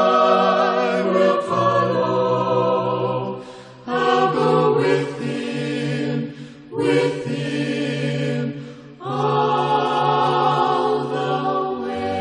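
Choir singing a slow hymn in long held chords, its phrases separated by three brief breaks.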